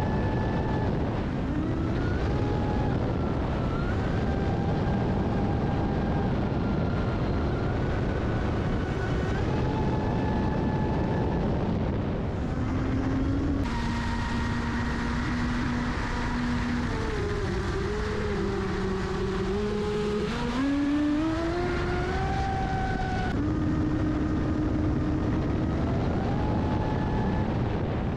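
Traxxas Spartan RC boat's 1600kv brushless motor whining under throttle over a rush of water and wind, heard from on board. The whine's pitch steps up and down with the throttle; in the middle it drops low and wavers as the boat slows through a spraying turn, then climbs again.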